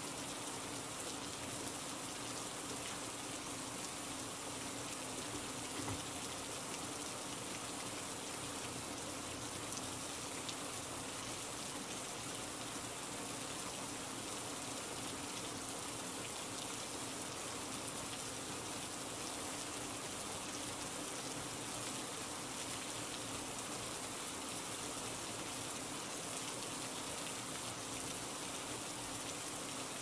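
Steady rain falling, an even hiss of rainfall with no let-up.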